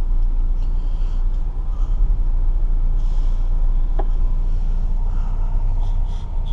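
Chevrolet vehicle heard from inside the cabin while driving: a steady low rumble of engine and road. A single sharp click comes about four seconds in, and paper rustles briefly near the end.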